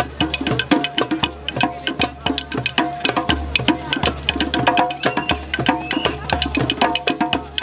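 Percussive music with a quick, steady beat of drum and clacking, wood-block-like strikes and short pitched notes over it.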